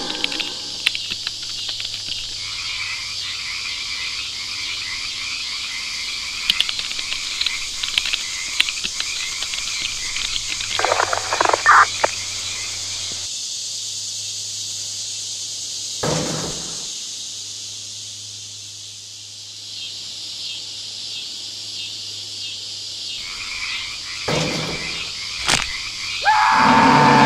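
Night-time jungle ambience of croaking frogs and chirping insects over a low steady hum, with scattered clicks and knocks. There is a louder burst about eleven seconds in and a short sharp sound about sixteen seconds in, and a louder wavering sound comes in near the end.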